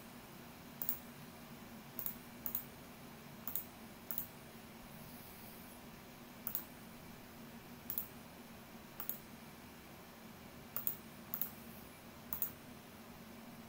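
Computer mouse and keyboard clicking: about a dozen short, sharp clicks at irregular intervals, some in quick pairs, as an online randomizer is set up. A faint steady hum sits under them.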